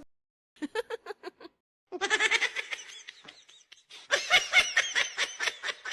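A person laughing: a few quick short bursts about half a second in, then laughter that builds from about two seconds and is loudest in rapid pulses, about five a second, in the second half.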